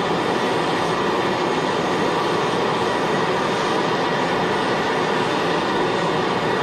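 Propane hand torch burning steadily with an even, constant hiss as its flame heats aluminium plates, bringing them up to temperature so the aluminium brazing wire will flow.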